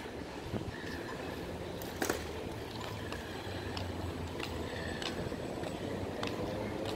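City street ambience: a low, steady traffic hum with scattered light clicks and ticks.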